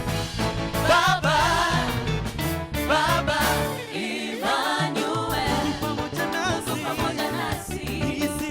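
A band playing gospel worship music, with singing over bass and drums; the bass drops out briefly about halfway through.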